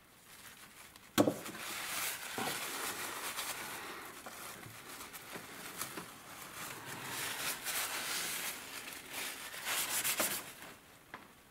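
A rag wiping and rubbing around the rim of a metal paint tin, with the dry scuff of cloth on metal coming and going over several seconds. A sharp knock about a second in is the loudest sound.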